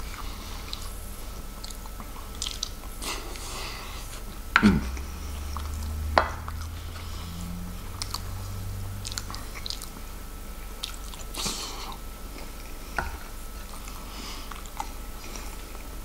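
Close-miked chewing of corned beef hash with fried potatoes: a run of small wet mouth clicks and smacks. Two louder sharp knocks come about four and a half and six seconds in.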